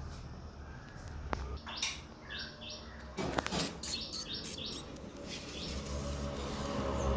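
A quick series of short, high chirping calls over a low steady hum.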